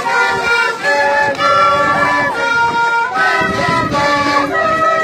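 Pinquillo music: a group of Andean pinquillo duct flutes playing a melody in held notes, several flutes sounding together in parallel.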